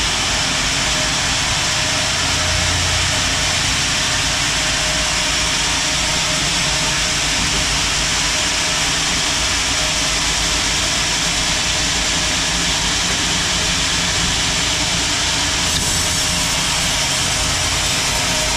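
Sawmill band saw running steadily as it cuts a large teak log lengthwise into thick planks, a loud, even machine noise with a faint steady whine and no breaks.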